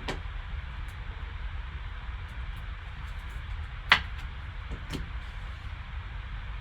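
Trading cards being handled on a table: a few sharp clicks and taps, the loudest about four seconds in, over a steady low hum and hiss.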